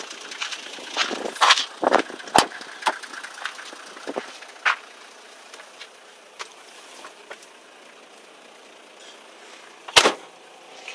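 Toyota Land Cruiser 75-series Troopcarrier idling faintly under a run of sharp clicks and knocks over the first few seconds as someone climbs into the cab, then a single loud thump about ten seconds in.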